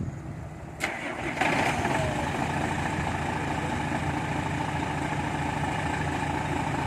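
A truck's diesel engine starts about a second and a half in, just after a sharp click, and then runs steadily at idle.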